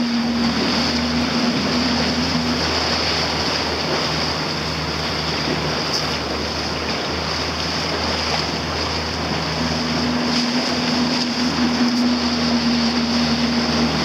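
Motor of a rigid inflatable boat running steadily at speed, its drone under a rush of water spray along the hull and wind on the microphone. A higher engine note fades out a few seconds in and comes back near the end.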